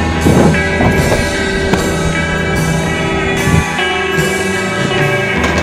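Rock music with guitars and drums: a post-punk or indie rock song.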